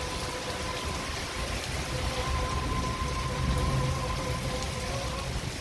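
Heavy rain pouring, with runoff water rushing through a street, an even wash of noise. A faint steady pitched tone runs underneath.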